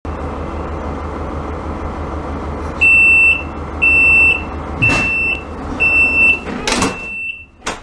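Passenger train door's closing warning: five high-pitched beeps, one a second, while the door moves shut with a couple of short mechanical rushes, ending in a sharp thump as the door closes. A steady low hum of the train runs underneath.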